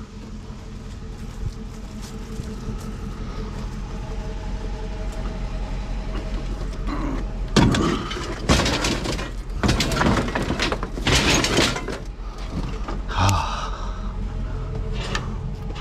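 Steady low hum of a running pickup truck, with several loud, rough clattering noises about halfway through.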